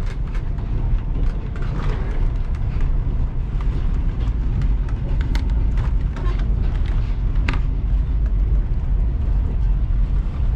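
Steady low rumble of a passenger train carriage running on the rails, heard from inside. A few sharp clicks come about halfway through as the cabin door is opened.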